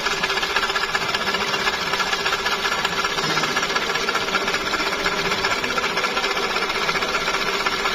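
Toyota Corolla 1.3 engine running with a steady mechanical whirring and rattling and a thin high whine over it. The mechanic traces the noise to the old, leaking water pump, and a new pump cures it.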